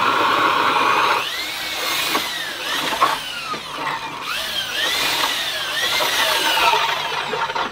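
Corded electric drill spinning an ice auger to cut a fishing hole through the ice. It gives a steady whine for about the first second, then its pitch repeatedly dips and climbs again as the auger bites into the ice.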